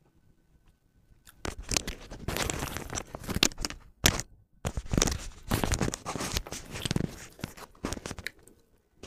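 Close-miked eating sounds of rice with red amaranth (lal shak) eaten by hand: dense wet crackling and squishing that starts about a second and a half in, with a brief pause around four seconds.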